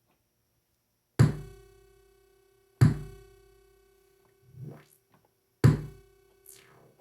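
1010music Nanobox Razzmatazz drum machine playing three synthesized kick drum hits, about a second in, near three seconds and past five and a half seconds, with softer hits between. Under them a steady buzzy tone with many overtones hangs on: the unwanted fuzz that the owner says comes with every synthesized bass sound on this unit and cannot be filtered out.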